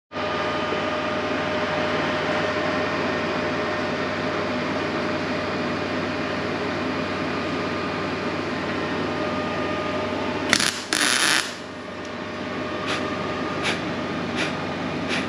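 Body-shop work on a steel replacement quarter panel being fitted to a car body: a steady hum with a thin steady tone, two short hissing bursts a little past halfway, then a run of sharp metallic clicks about a second apart.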